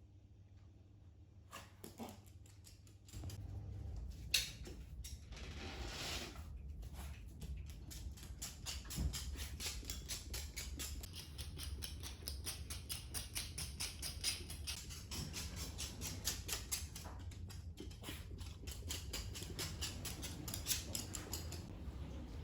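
A Cavalier King Charles Spaniel sneezing and snorting over and over, several short sharp bursts a second, starting about two seconds in. These are the fits of a respiratory illness that the owner suspects is kennel cough.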